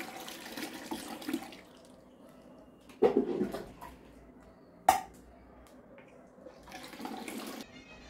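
Thin, watery wheat starch poured from a steel bowl through a fine steel sieve into a large metal container, splashing and trickling. There are two sudden knocks, about three and five seconds in.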